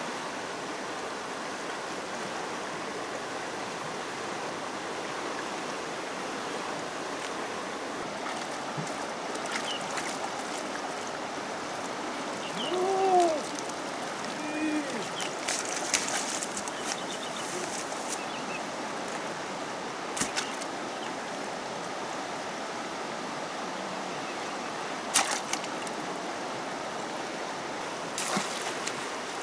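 Steady rushing of a fast-flowing, swollen river, with a few short splashes as a woven basket scoop is swept through and lifted out of the water by someone wading. A brief voice-like sound rises and falls about halfway through.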